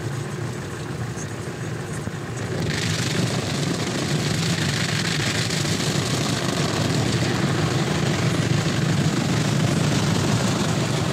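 Automatic car wash heard from inside the car: rotating brushes and water spray beating on the windscreen over a steady low hum. The hiss of spray grows louder about three seconds in and stays up.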